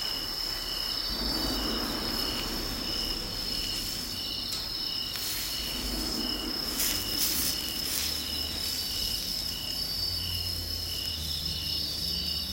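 Insects chirping steadily: one continuous high trill over a pulsing chirp that repeats about one and a half times a second. A few faint crackles from the campfire come through around the middle.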